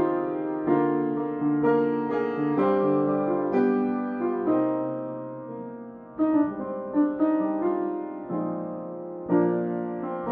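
Background music: slow piano chords and melody with note onsets about every half second to a second.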